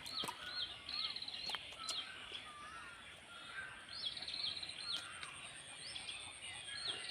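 Birds chirping and calling: repeated short upswept notes and brief buzzy trills, with a few faint clicks.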